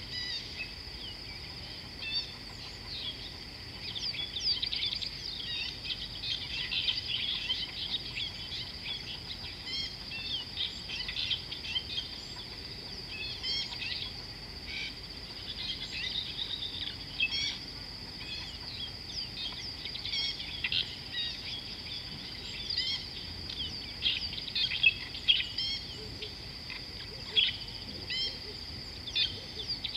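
Outdoor bush ambience: many birds chirping and calling in quick, overlapping short notes over a steady high-pitched drone.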